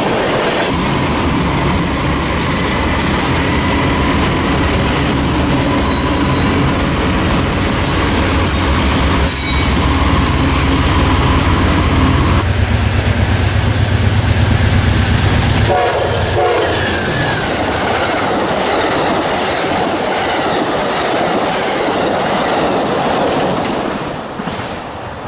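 A train passing close by: a locomotive engine rumbles steadily while the wheels clack in a quick rhythm over rail joints, and a horn sounds.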